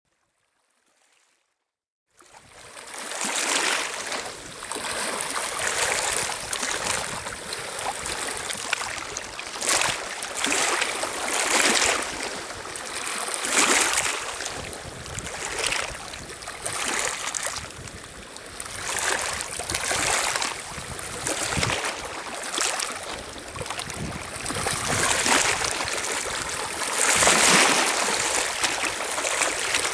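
Near silence for about two seconds, then small lake waves lapping and washing over a pebble shore, swelling and easing every second or two.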